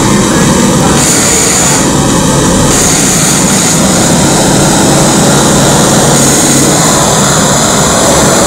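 Live experimental electronic noise music: a loud, dense wall of noise over a steady low drone, with a high hissing layer that cuts in and out several times.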